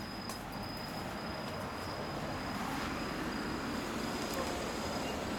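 2009 Harley-Davidson Sportster 1200L's air-cooled V-twin engine idling steadily, with a steady high-pitched insect trill alongside.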